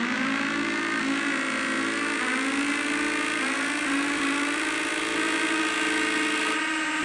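Synthesized fantasy sound effect: a dense, steady drone of many wavering tones over a low hum, which stops suddenly at the end and fades away.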